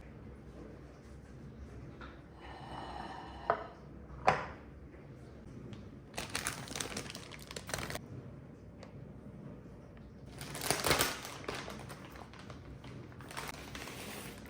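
Close handling sounds: two sharp clicks, then three separate bursts of rustling or crinkling.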